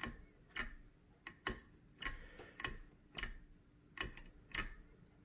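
Sharp clicks, about two a second and unevenly spaced, from a wrench being worked on a rifle's action screw.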